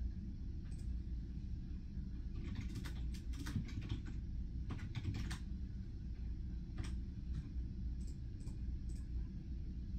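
Computer keyboard typing: bursts of keystroke clicks, thickest a few seconds in and scattered after, over a steady low room hum.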